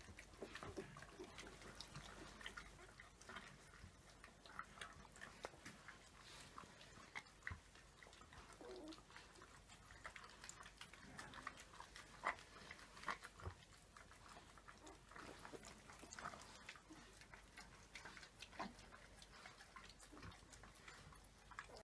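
An Irish Setter bitch eating soft food from a steel bowl, with quiet, irregular smacking and lapping clicks, and a few small squeaks from her newborn puppies.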